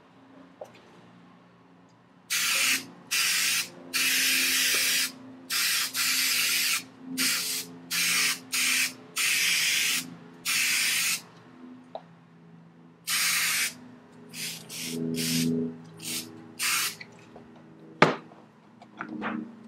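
3M Super 77 spray adhesive hissing out of its aerosol can in about a dozen short bursts, some shorter and some held for about a second, as it is sprayed over a bicycle saddle's foam. A single sharp knock follows near the end.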